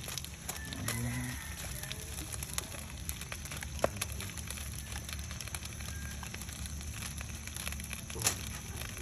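Fire in a grill stove crackling under a fish roasting on foil, with a steady low rumble and small scattered crackles. Sharper pops come about four seconds in and again about eight seconds in.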